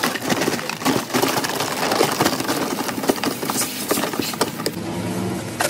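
Water poured and sloshed into a plastic bucket of live mangrove crabs, splashing, with many small clicks and scrapes as the crabs' shells and legs knock against each other and the bucket while they are washed.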